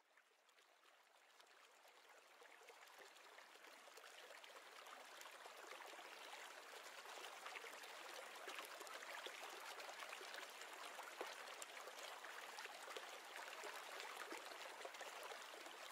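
Faint, steady rushing hiss with small crackles, like trickling water, fading in from silence over the first few seconds.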